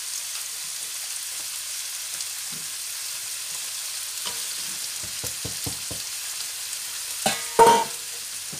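Chopped onions, celery, bell peppers and aubergine sizzling in a hot pan during their first cooking, stirred with a spatula. There are a few short knocks of the spatula against the pan about five to six seconds in, and a brief louder clatter near the end.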